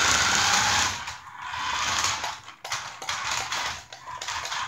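A small electric motor in a battery-powered toy, whirring in four bursts of about a second each with short breaks between.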